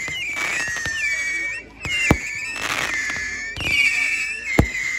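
Whistling fireworks going off one after another, each a high steady whistle lasting about a second, some bending in pitch at the end. Two sharp bangs, about two seconds in and near the end, the second the loudest.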